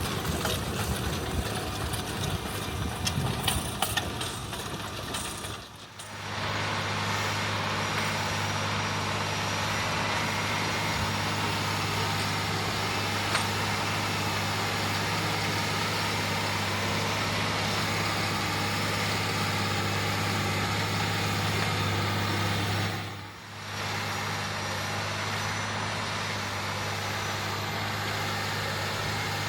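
John Deere 9360R tractor's diesel engine running steadily under load while pulling an 8-bottom moldboard plow. The first few seconds are rougher, with clicks. The sound drops out briefly twice, about 6 and 23 seconds in, and after each drop a steady low engine drone comes back.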